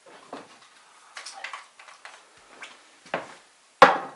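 Scattered knocks and rustles of a person moving about and handling things on a wooden plank floor, with one sharp knock near the end, the loudest sound.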